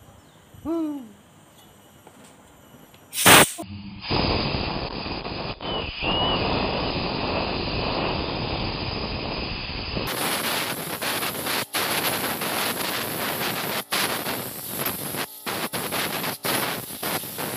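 Compressed-air blow gun blasting air into a brush cutter's open clutch housing: a sharp pop about three seconds in, then a steady loud hiss that breaks off briefly several times in the second half.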